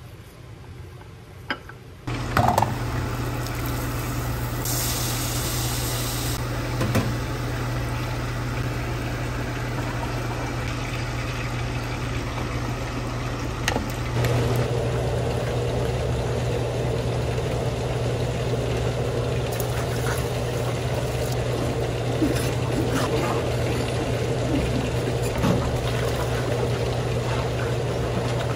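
Kitchen work over a steady low hum, with a few light clinks while batter is stirred. From about halfway, tap water runs into a stainless steel sink as a plate is scrubbed under the stream.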